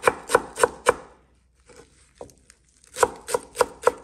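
Chef's knife chopping fresh cilantro on a wooden cutting board: an even run of sharp knife strikes, about three a second. The strikes stop for about two seconds in the middle, with only a few faint taps, then start again.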